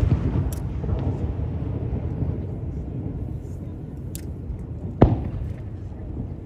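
Aerial firework shells exploding. The low echoing rumble of a burst fades over the first two seconds, then a single sharp bang comes about five seconds in and trails off in a rumble.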